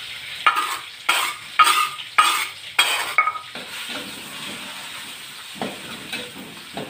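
Ground spice paste sizzling in hot oil in a wok, with a metal spatula stirring and scraping against the pan: sharp knocks about twice a second over the first half, then a quieter sizzle with the odd scrape.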